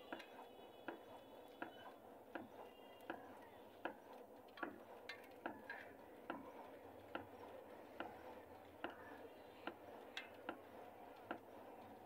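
Faint, evenly spaced ticks, a little more than one a second, over a steady low hum.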